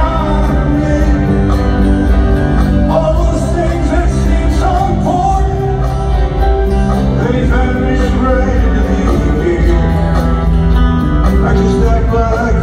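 Live rock band with a male lead singer, recorded from the stands of a stadium: the singer's voice, carried by the PA, runs over the band.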